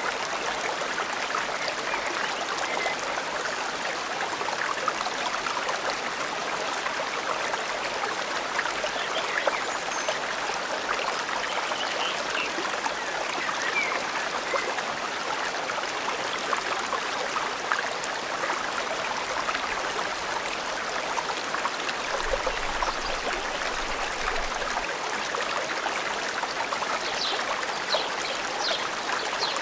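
A forest stream running and trickling steadily over stones, with a few faint, short bird chirps, several of them near the end.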